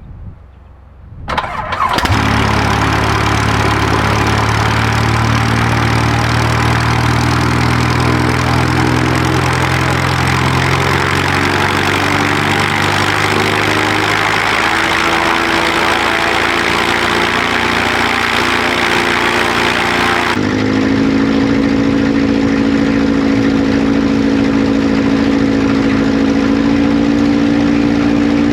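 Avid Flyer light aircraft's engine being started: a brief crank, then the engine catches about two seconds in and runs steadily at low speed just after the cold start. Its note rises a little around the middle and changes abruptly about twenty seconds in.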